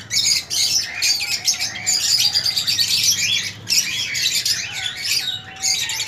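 Many small cage birds chirping continuously, a dense high-pitched chorus with no pauses.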